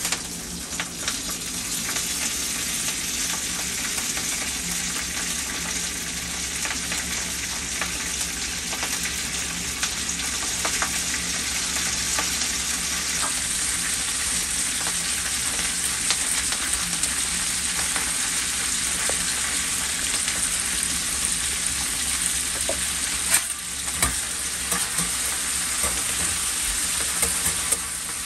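Food sizzling and frying on a hot iron griddle, stirred and turned with a metal spatula, with many small clicks and a couple of sharper knocks late on.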